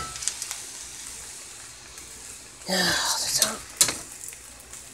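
Fried rice sizzling quietly in a wok as it is stirred with a utensil, with a sharp clink of the utensil against the wok a little before the end. A short murmur of a person's voice just past the middle is the loudest sound.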